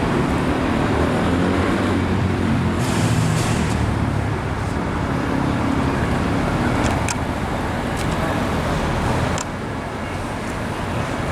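Road traffic with a motor vehicle engine running close by, a steady low hum over traffic noise, which drops slightly in level about nine seconds in.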